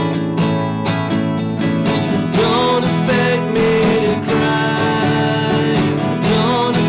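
Two acoustic guitars strummed and picked together; a man's voice starts singing about two seconds in and carries a melody over the chords.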